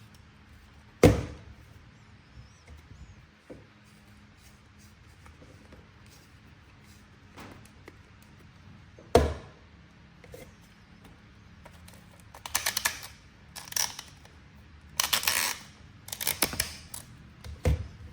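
Toy packaging being handled during an unboxing. Two sharp knocks come far apart, then several short bursts of crackly clicking about two thirds of the way in, and a final knock near the end.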